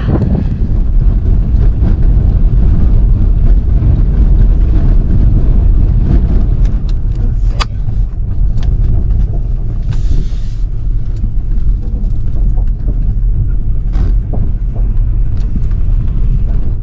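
A car driving, heard from inside the cabin: a loud, steady low rumble of engine and road, with scattered small knocks and rattles.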